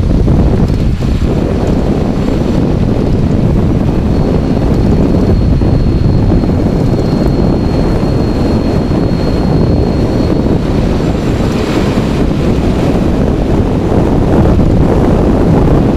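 Wind buffeting a camera mounted low on a riding electric bike, with road rumble under it, loud and steady. A thin high whine holds steady from about four seconds in to about ten seconds.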